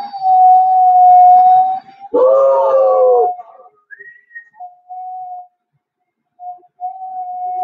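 Dog howling: a long howl held at one steady pitch, then a fuller, wavering howl about two seconds in that sags at its end, followed by shorter howls broken by gaps.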